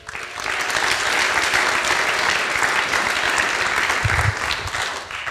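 Audience applauding: a steady round of clapping that dies away near the end.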